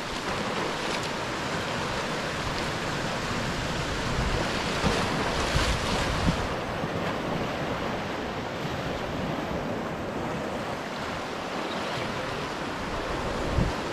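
Sea waves surging and washing over a rocky shore, with gusts of wind buffeting the microphone.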